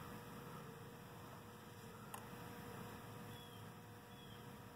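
Faint steady hum over low background noise, with a single light click about two seconds in.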